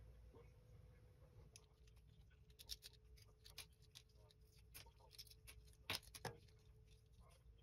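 Faint clicks and ticks of small plastic scale-model kit parts being handled and fitted together by gloved hands, a scattered handful of sharp clicks over a faint steady hum.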